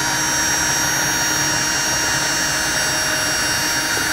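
Electric drill running steadily at speed with an even whine, spinning a perforated can-lid spinner of melted sugar in a homemade cotton candy maker.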